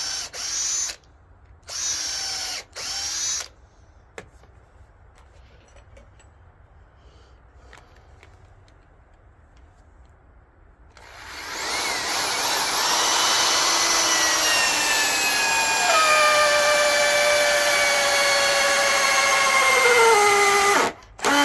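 Corded electric drill: three short trigger pulls near the start, then a long run of about nine seconds in which the motor's whine sinks in pitch as it loads up, and a brief blip at the end.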